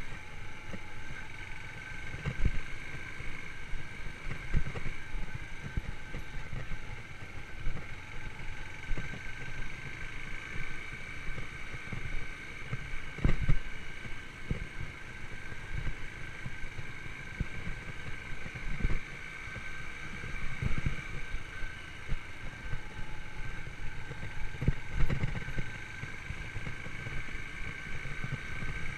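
Yamaha YBR125's single-cylinder four-stroke engine running while riding, with a steady high tone and irregular low thumps.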